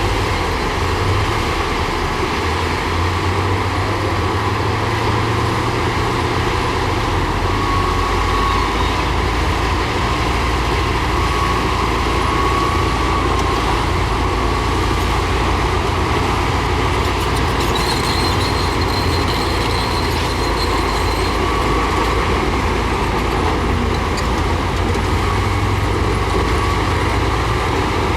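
Heavy diesel earthmoving machinery, a bulldozer and dump trucks, running steadily under load, with a deep, even engine drone throughout.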